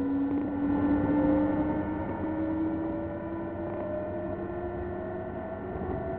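The Ej 575 double-deck electric multiple unit is accelerating, heard from inside the carriage. The traction motor whine climbs slowly in pitch over the steady rumble of the wheels on the track.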